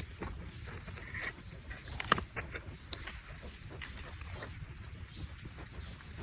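Pigs feeding, with scattered sharp clicks and knocks over a low rumble; one louder click comes about two seconds in.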